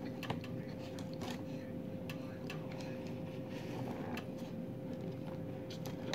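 Eating dry cornflour through a drinking straw: scattered, irregular small clicks of the straw and mouth in the powder, over a steady electrical hum.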